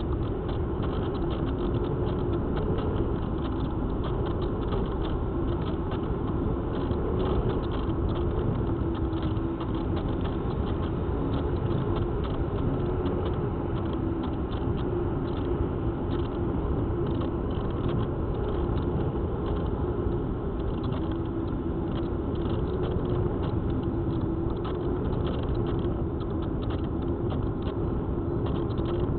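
Onboard sound of a Spyhawk FPV model plane in flight: its motor and propeller running steadily with a slightly wavering drone, over the rumble of the airflow past the airframe.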